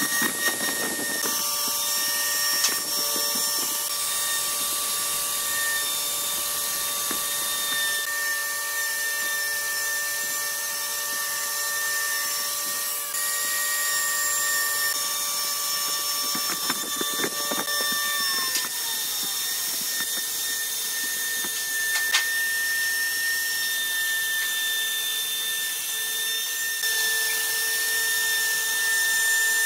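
Dongcheng plunge router running at speed, its bit cutting a shallow groove into a wooden board: a steady high whine over the hiss of cutting wood, with a few faint clicks.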